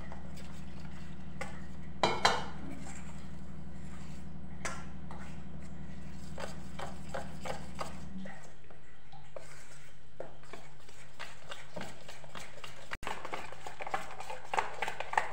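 A spoon stirring and scraping thick gram-flour batter in a stainless steel bowl, with irregular small clicks of metal on metal and a louder knock about two seconds in. A steady low hum runs underneath and drops off sharply about eight seconds in.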